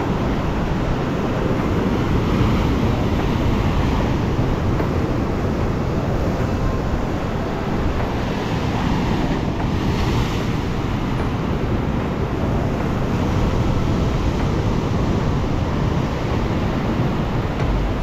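Stormy sea surf breaking and washing up the shore in a steady roar that swells every few seconds, with wind rumbling on the microphone.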